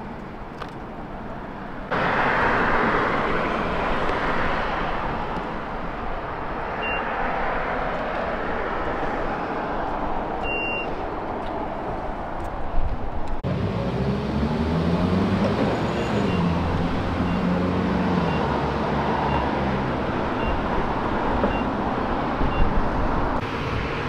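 BMW F30's straight-six engine and road noise as the car is driven: first a steady rush of tyre and road noise, then, about halfway through, the engine note rises and falls. A faint regular ticking joins in the later part.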